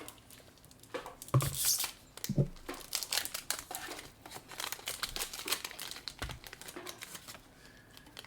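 Foil Pokémon booster pack wrapper crinkling as it is torn open, a run of sharp crackles that is loudest about a second and a half in.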